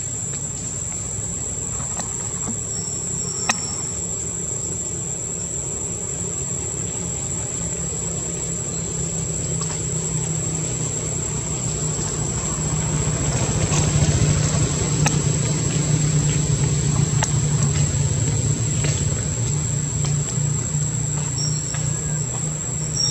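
Steady high-pitched insect drone over outdoor background noise, with a low rumble that swells from about halfway through, and a few sharp ticks here and there.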